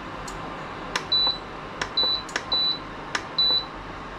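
Palson induction cooktop's touch panel beeping four times, a short high beep after each tap of a button, as the heat setting is turned down.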